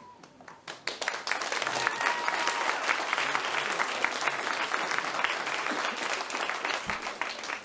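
Audience applauding, the clapping starting about a second in and dying away near the end.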